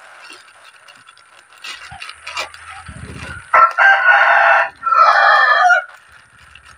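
A rooster crowing loudly about three and a half seconds in, the call breaking into two parts. Before it, the faint crinkle of a plastic mailer bag being pulled open by hand.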